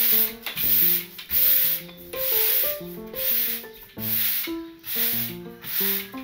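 Bristle broom sweeping across tatami mats in a steady series of swishing strokes, gathering swept-up dust into a pile.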